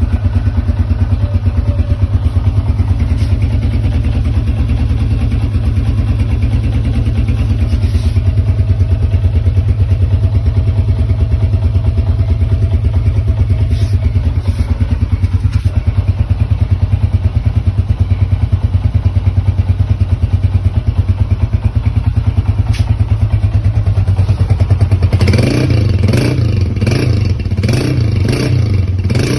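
1979 Honda 125 motorcycle engine idling steadily through an aftermarket silencer, then blipped with a rapid series of short throttle revs from about 25 seconds in.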